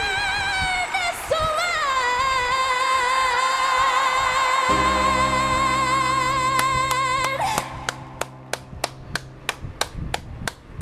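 A woman's voice holding the long, wavering final note of a ballad over piano, with low chords coming in about halfway through. The music stops near the end and steady hand claps follow, about three a second.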